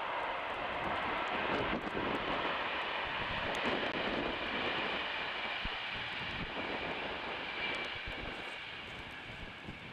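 An express train's steady rushing noise, fading over the last few seconds as it draws away.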